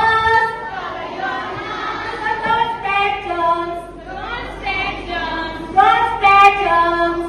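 Children singing a song, with long held notes that slide from one pitch to the next.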